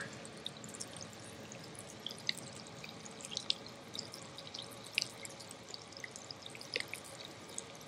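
Faint scattered ticks and pops of lead-acid battery electrolyte bubbling in an open cell as the welder's DC current gasses it during desulfation, over a low hiss.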